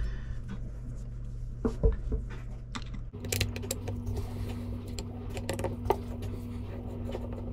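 Small scattered clicks and taps of a screwdriver and hand tools working on a small outboard carburetor's metal body as its screws are backed out, with a single louder thump a little under two seconds in. A low steady hum comes up about three seconds in.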